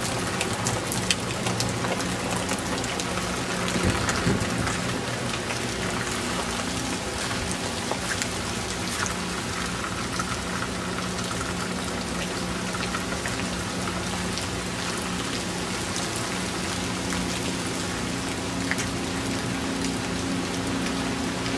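Steady rain pattering and dripping, with a constant low hum underneath.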